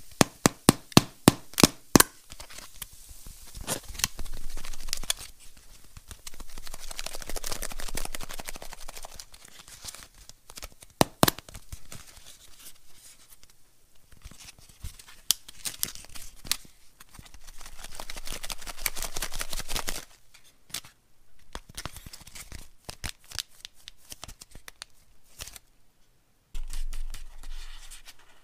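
Thin printed foil wrapping being crinkled and pressed in the hands. A quick run of sharp crackles in the first couple of seconds, then bouts of crinkling with scattered crackles.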